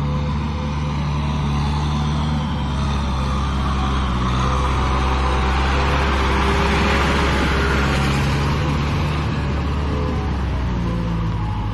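Kubota M6040SU tractor's diesel engine running steadily under load, driving a rotary tiller through wet paddy mud, with the tyres and tiller churning the mud. The churning noise swells around the middle.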